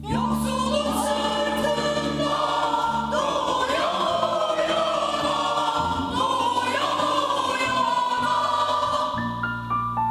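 Polyphonic choir singing a Turkish folk song (türkü) in harmony, entering suddenly at the start over low sustained notes. Near the end the voices die away and plucked bağlama notes come back alone.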